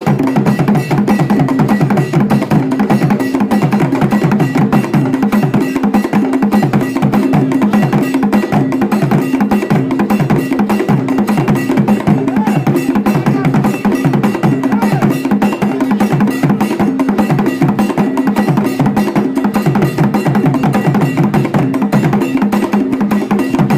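Intro music built on fast, dense percussion with wood-block-like clicks over a steady low pitched tone, loud and even, cutting off abruptly at the end.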